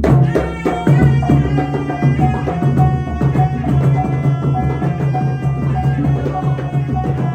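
Traditional wayang kulit accompaniment music: hand drums playing a busy rhythm under a short melodic note repeated about three times a second, over a low held tone.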